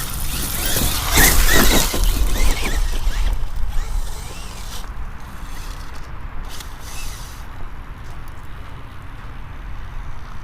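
Axial Yeti XL RC truck on 6S power driving hard on dirt: a loud burst of motor and tyres spinning through dirt about a second in, then quieter running.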